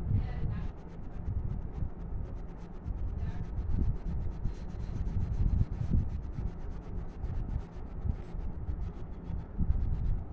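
Coloured pencil scratching on paper in quick back-and-forth shading strokes, several a second, over a steady low rumble.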